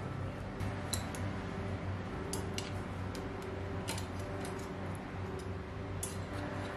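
Metal tongs clicking against a wire oven rack as roasted chicken pieces are lifted and turned over: scattered light clicks and taps over a steady low hum.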